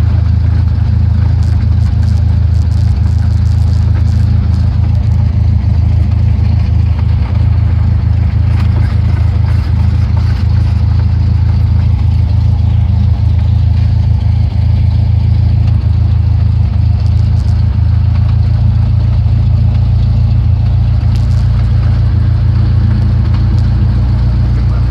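Cessna 172's piston engine and propeller running at a steady low drone, the level unchanging throughout.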